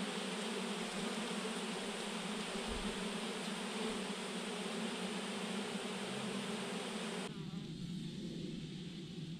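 Swarm of honeybees clustered on a branch, thousands of bees buzzing together in a steady, dense hum. About seven seconds in the higher part of the buzz cuts off suddenly, leaving a lower, quieter hum.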